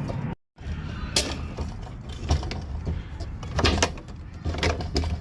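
Scattered light clicks and knocks of the new fuel pump assembly and its gasket being handled and seated in the fuel tank opening, over a low steady hum, with a brief total gap in the sound about half a second in.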